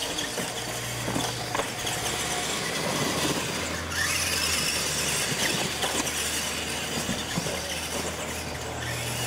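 Two radio-controlled monster trucks racing across a dirt track: their motors and drivetrains run under throttle and their tyres scrabble over the dirt, with small knocks over the steady noise.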